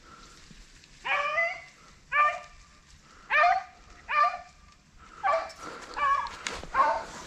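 Rabbit dogs barking on a rabbit's trail, about seven barks spaced roughly a second apart, starting about a second in.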